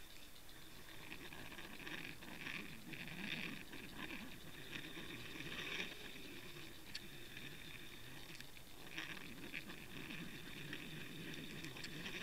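Faint, muffled water noise picked up by a camera in a waterproof housing underwater: irregular crackling and rustling that swells and fades, a few sharp clicks, and a steady high hum running through it.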